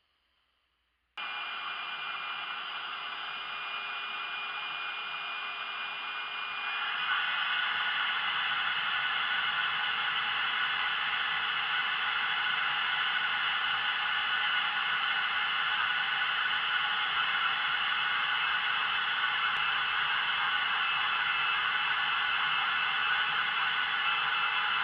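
Vacuum cleaner motor switched on about a second in, drawing air through a vacuum table in a steady whining rush. About seven seconds in it gets louder and its whine rises slightly, then runs on steadily.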